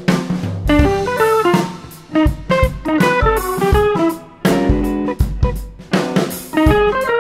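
Intro music: plucked guitar notes over a drum kit with a steady beat.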